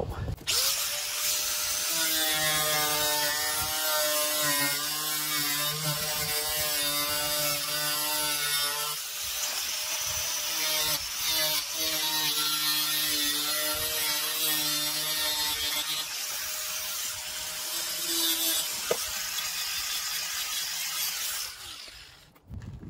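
4-inch angle grinder with a cutting disc spinning up and cutting through a fiberglass-reinforced plastic (FRP) panel: a steady motor whine under a loud, hissing grind, its pitch shifting a few times as the load changes, then winding down near the end.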